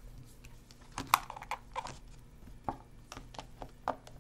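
A deck of oracle cards and its cardboard box being handled: a string of sharp taps and knocks, the loudest about a second in.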